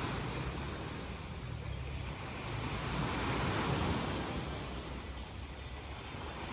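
Sea waves washing onto the shore, swelling to a peak about halfway through and easing off, with wind rumbling on the microphone.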